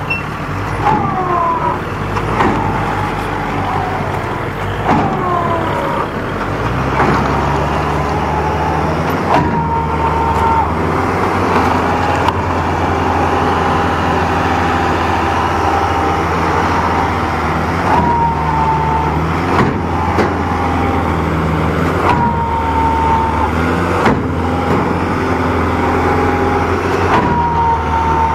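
Kubota MU4501 4WD tractor's four-cylinder diesel engine running hard under heavy load as it strains to pull a loaded trolley bogged in deep mud; the engine note strengthens and holds steady about six seconds in. Short high-pitched falling squeals recur every few seconds.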